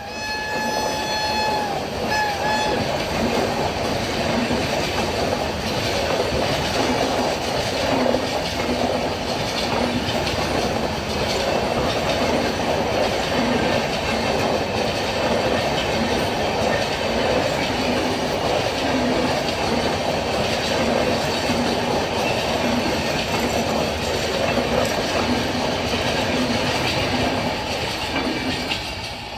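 Indian Railways WAP7 electric locomotive's air horn: a long blast that ends about two seconds in, followed by two short toots. Then the train runs past with a steady, loud rumble and its wheels clattering over the rail joints.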